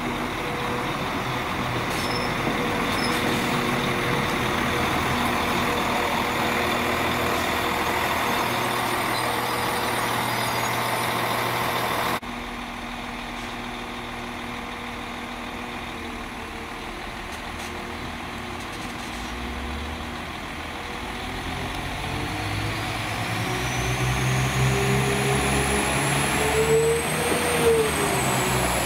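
Northern Class 195 diesel multiple unit running into the platform and braking, the noise dropping suddenly about twelve seconds in. It then stands with its diesel engines idling, and in the last few seconds pulls away, engines revving up with a rising whine.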